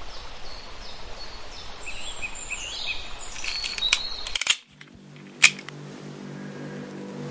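Outdoor ambience with small birds chirping, followed by a quick cluster of sharp clicks. The sound then cuts out abruptly and gives way to a low steady hum, broken once by a single loud click.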